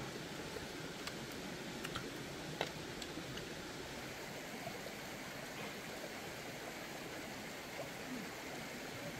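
Steady rushing background noise, with a few light clicks and taps of people eating with chopsticks and a spoon about one to three seconds in.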